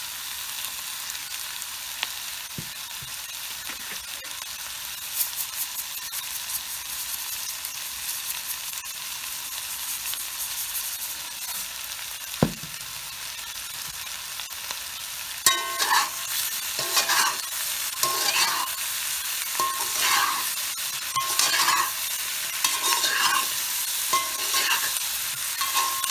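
Boiled potato chunks frying in melted butter in a cast-iron skillet over a gas flame, sizzling steadily, with one sharp knock near the middle. From about two-thirds of the way in, a utensil stirs and scrapes them around the pan in repeated strokes, about one a second.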